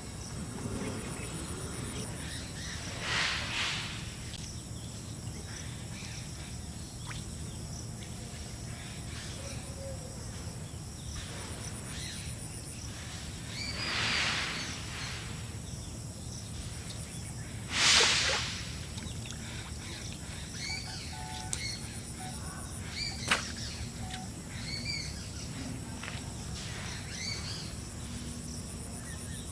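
Outdoor rural ambience with small birds chirping now and then and a faint high insect trill. A few short noisy swishes stand out, the loudest about eighteen seconds in, with a sharp click a little later.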